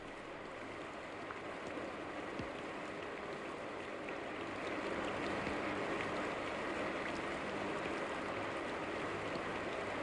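A steady rain-like rushing noise, left alone after the song's music has stopped; it grows a little louder over the first few seconds.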